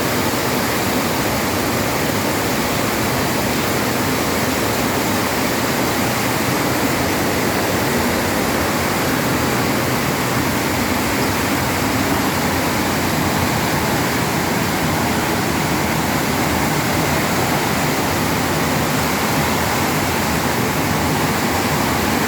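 Heavy tropical rain pouring down, a steady, dense hiss that does not let up.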